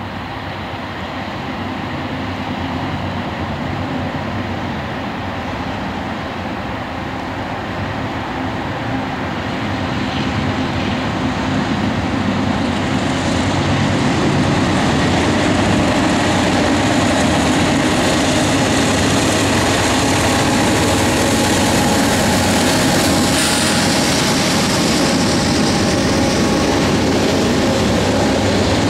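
Union Pacific diesel-hauled coal train approaching and passing: the sound grows louder over the first half as the train nears, then holds steady as coal hopper cars roll past with continuous wheel and rail noise.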